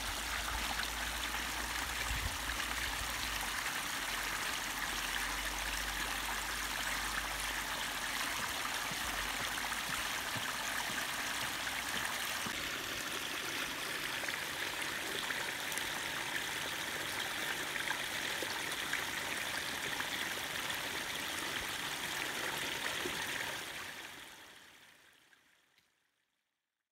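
Water splashing and trickling steadily down the small rock cascade of a pondless waterfall, fading out near the end.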